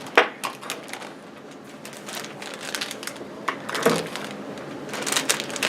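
Scattered sharp clicks and short rustles, as of objects being handled.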